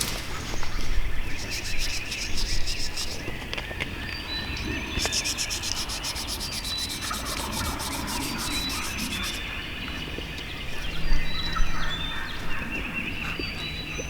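Spring woodland bird chorus: fast high trills, repeated short whistled notes and a steady background of chirping. Close to the microphone there are intermittent rustling and brushing sounds, louder about a second in and again near the end.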